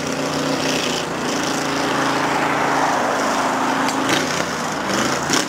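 Car engine running at a steady speed on the street, with a rush of exhaust and road noise that swells through the middle and a couple of sharp clicks near the end.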